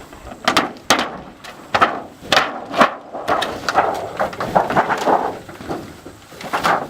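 Irregular knocks and bangs of hand-tool demolition work on an observatory building, a dozen or so blows at uneven spacing. The loudest fall in the first three seconds, with softer knocks after.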